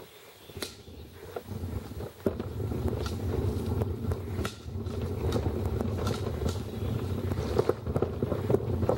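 Footsteps of a person walking on a paved path at an even pace, each step a sharp click over a low rumble that grows louder about two seconds in.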